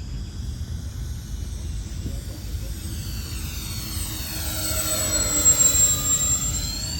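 Electric motors and propellers of a four-engine RC B-24 Liberator model whining as it makes a low pass, swelling to loudest about five and a half seconds in and then easing off. A steady low rumble runs underneath.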